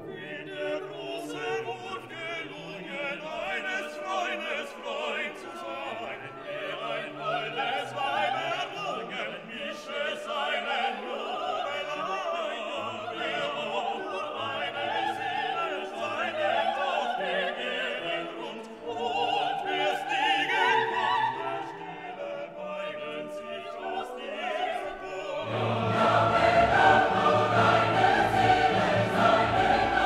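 Background classical music with operatic singing over an orchestra. About 25 seconds in, it swells louder and fuller.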